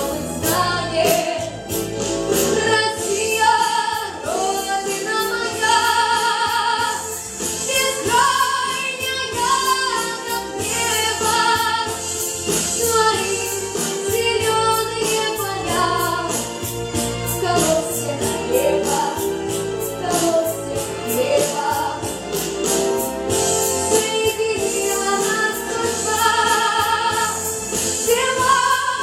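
Female solo voice singing a patriotic Russian pop song over a full backing track, with long held notes sung with vibrato.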